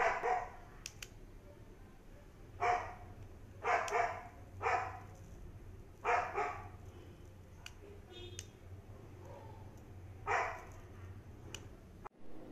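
A dog barking: about six single barks at irregular intervals, with a few faint clicks between them.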